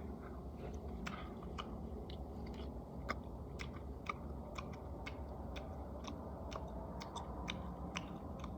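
A person chewing food close to the microphone: irregular small clicks of the mouth, two or three a second, over a low steady hum.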